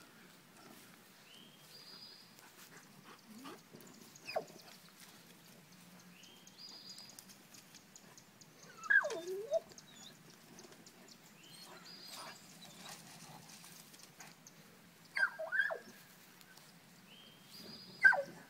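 Dogs whining eagerly while hunting a chipmunk: four short, falling whines, the loudest about nine seconds in and another near the end.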